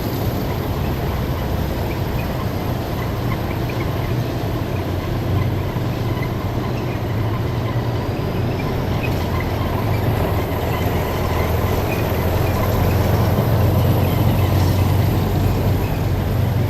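Heavy military vehicles' engines rumbling steadily as a column drives past, with a deep low drone and a slight swell in loudness near the end.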